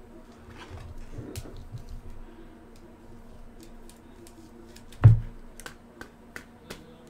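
Scattered light clicks and taps from trading cards and plastic card holders being handled, with one louder knock on the table about five seconds in.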